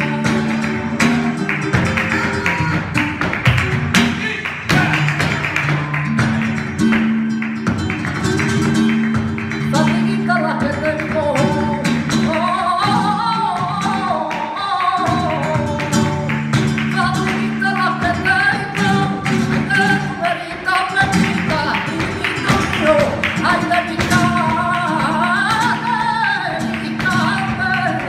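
Flamenco cante: a woman sings long, wavering, ornamented lines over flamenco guitar, with rhythmic palmas (handclaps). The singing becomes prominent about a third of the way in.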